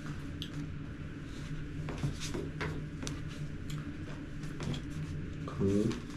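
Quiet room tone with a steady low hum and scattered light clicks and rustles, with a brief voice near the end.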